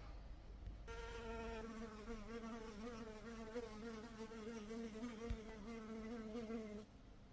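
Honey bee buzzing in flight: one steady, slightly wavering buzz that starts about a second in and stops shortly before the end.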